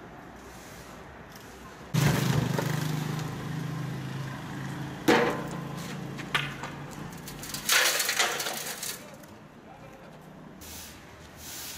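A street broom and a dustpan scraping dirt and grit on asphalt, in several rough strokes, with sharp knocks about five and six seconds in. A low steady hum comes in abruptly about two seconds in and slowly fades.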